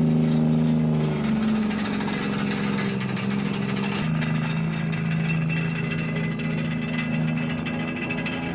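Heavy machine's engine running steadily under load with mechanical clatter and rattling. The engine note shifts slightly about a second in and again about four seconds in.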